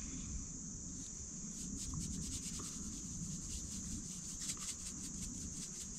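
Steady high-pitched chorus of insects, with faint scattered clicks and a low rumble underneath.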